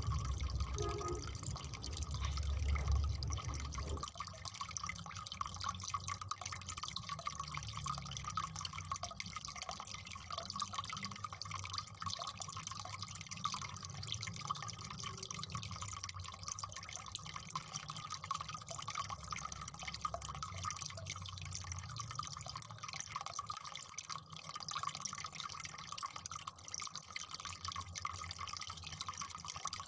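Faint, steady background sound of dripping water, with a low rumble during the first four seconds.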